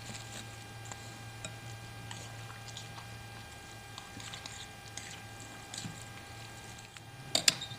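Quiet tableware handling and faint clicks over a steady electrical hum, then two sharp clinks, a spoon striking a bowl, near the end.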